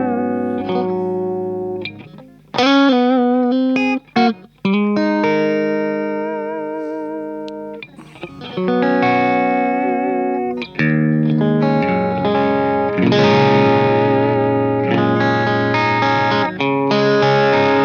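Electric guitar with P90 pickups through a Dover DA-50 amplifier's clean channel, gain right down: strummed chords left to ring out, some held with a wavering vibrato. The tone is clean with a little hair, a touch of breakup, on it.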